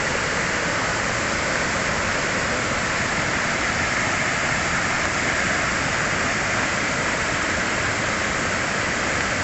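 Heavy tropical rain pouring down, mixed with rushing runoff and floodwater, making a steady, unbroken noise.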